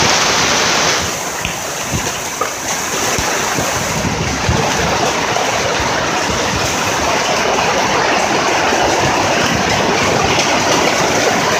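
Very heavy rain pouring down, a dense and steady rush of falling water.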